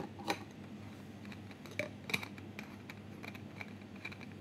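Head of a stainless-steel whipped-cream siphon being screwed onto the bottle: a few faint, scattered clicks and ticks of the parts meeting.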